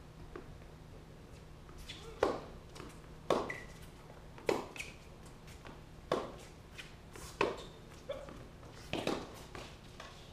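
Tennis rally on a hard court: sharp pops of the ball struck by rackets and bouncing, about six in a row, a second or so apart, starting about two seconds in.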